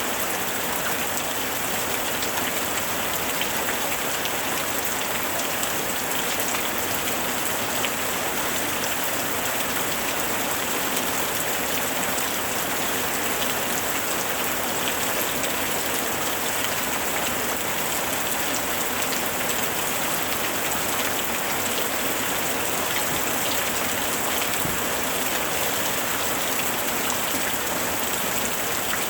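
Steady rain falling, an even hiss with many small drops pattering on a surface.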